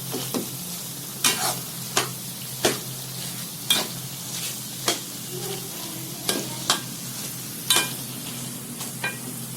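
A spoon scraping and knocking against a karahi about once a second as a thickening semolina-and-milk halwa is stirred continuously, over a steady sizzle of it cooking in oil.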